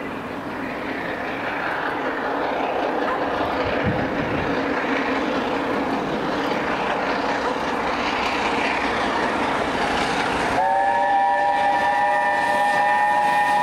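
LNER A4 Pacific steam locomotive 60007 Sir Nigel Gresley approaching with its train, its running noise growing louder as it nears. About ten and a half seconds in, its chime whistle sounds a long steady chord.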